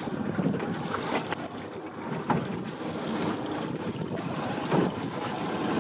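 Wind buffeting the microphone on an open boat at sea, with water washing against the hull and a few faint knocks.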